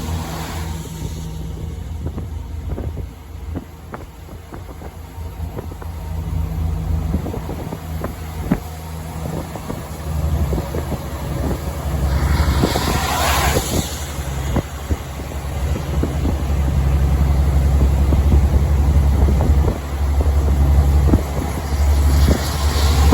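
Heavy truck's diesel engine droning while driving on the highway, with many small clicks and rattles over the drone. The engine grows louder in the second half. There are two brief rushes of passing noise, one about halfway through and one near the end.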